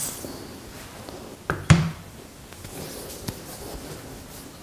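A single sharp knock about one and a half seconds in, over faint room noise.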